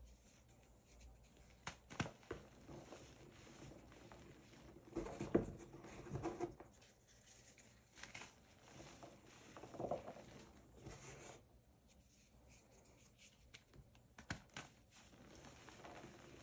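Reformed gym chalk blocks crushed and crumbled by hand into loose powder: soft, scattered crunching and powdery rustling. There are a few sharp snaps, and louder crunching comes about five to six seconds in and again near ten seconds.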